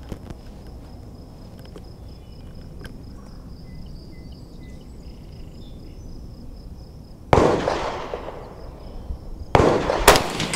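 Rifle shots on an outdoor range. A sharp report about seven seconds in rings out for over a second, then two more shots follow about half a second apart near the end.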